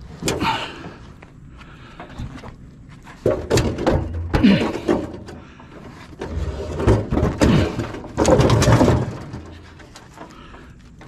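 A string of clunks, knocks and scraping noises from heavy objects being handled and moved, in irregular bursts, loudest in the middle of the stretch and again later on.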